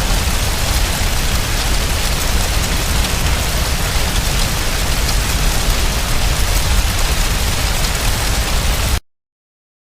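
A loud, steady rushing hiss, like rain or static, that cuts off suddenly about nine seconds in.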